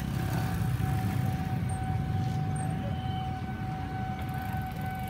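Steady low rumble of wind on the microphone, with a single high tone held at one unchanging pitch from about half a second in.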